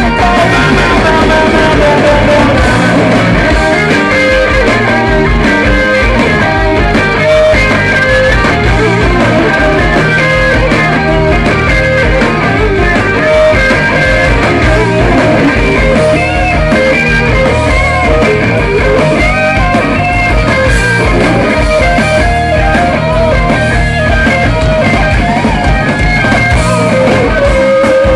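Live rock band playing loudly on stage, with electric guitar lines over drums, heard from the audience.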